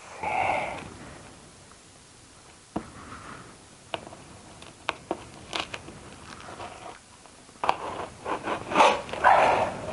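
Packaging being handled while a new shredder is unboxed: scattered sharp clicks and scrapes with short crinkling rustles. The rustles grow busier and louder over the last couple of seconds, and there is a brief noisy burst about half a second in.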